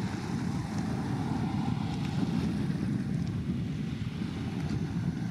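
Wind buffeting the microphone outdoors: a steady low rumble that flutters constantly, over faint open-air background noise.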